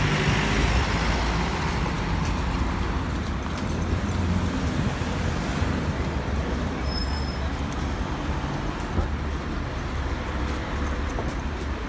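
Street traffic passing on a city road: a steady rumble of engines and tyres, with brief faint high chirps about four and seven seconds in.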